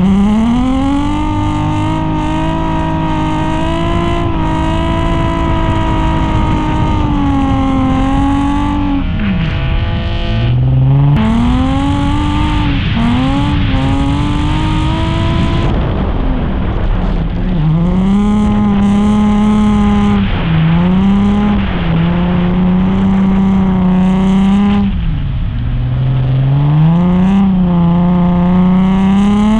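Drift car engine held at high revs in long pulls. The pitch dips sharply about three times, as the throttle is lifted, and climbs again.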